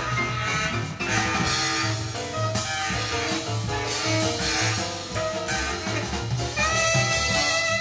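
Swing-era jazz quartet recording played back over Estelon XA floor-standing loudspeakers in a listening room: a steady walking bass line with drum kit, and a horn holding a long note near the end.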